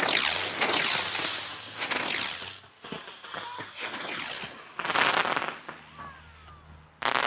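Ground fountain firework spraying sparks: a loud hissing spray with crackle that starts at once, dies down after about two and a half seconds, then flares again around five seconds in and briefly near the end.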